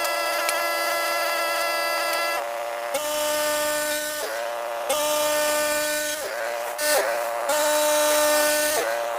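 Portable band sawmill running: a steady, strongly pitched machine whine that dips briefly and recovers several times before settling again.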